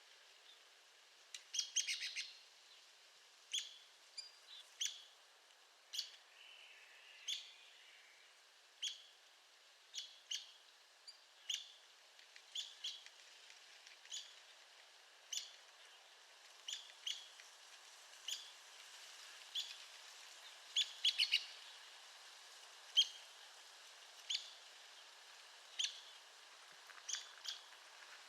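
Arizona woodpecker giving short, sharp high call notes about once a second, with a quick run of several notes about two seconds in and again about twenty-one seconds in.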